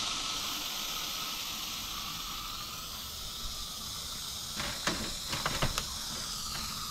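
Aerosol insect fogger (bug bomb) discharging, a steady hiss of mist jetting from the can to kill spiders and bugs. A few light knocks sound about five seconds in.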